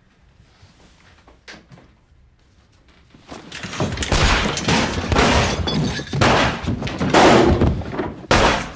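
A faint knock, then a rapid series of loud pistol shots starting about three seconds in, ringing and echoing in a small room.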